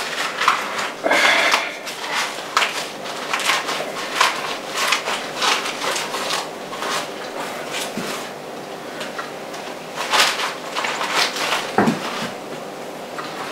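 Fresh corn husks being peeled back and the silk stripped off the cob by hand: a quick run of dry rustling and tearing sounds, with a soft knock near the end.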